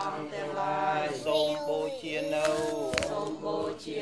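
A group of voices chanting a Buddhist chant in unison, with long held notes that bend in pitch. There is a sharp tap about three seconds in.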